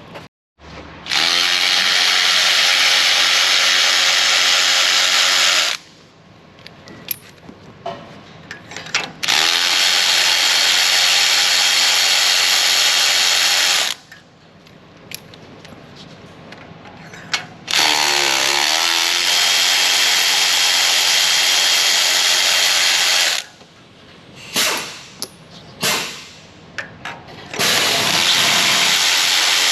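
Cordless power tool spinning out the loosened spark plugs one after another: four long runs of a few seconds each, with short pauses and small clicks of the socket between them, the last starting near the end.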